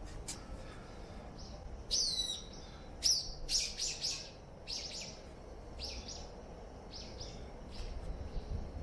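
Small birds chirping: a string of short, high calls that are loudest two to four seconds in, one call sliding down in pitch, then scattered chirps.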